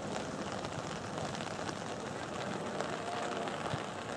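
Steady outdoor background noise at a soccer field, with faint distant voices calling.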